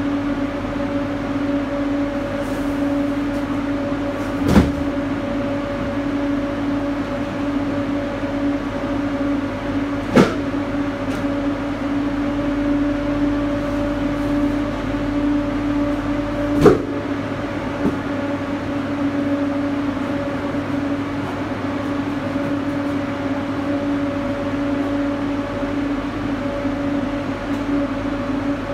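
A refrigerated truck box's cooling unit running with a steady two-tone hum. Three sharp knocks come several seconds apart as cartons are handled on the cargo floor.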